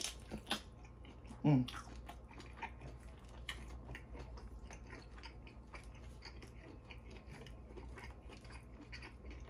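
Close-up chewing and lip-smacking on a mouthful of lobster tail: a steady run of small wet mouth clicks. About a second and a half in comes one short falling "mmm" of enjoyment.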